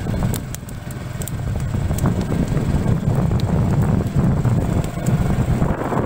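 Burning sugarcane field: a steady low rumbling roar with scattered sharp crackles from the burning cane.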